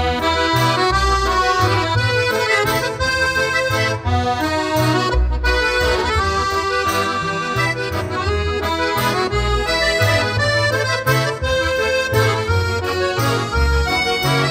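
Accordion music playing a lively tune over a recurring bass accompaniment.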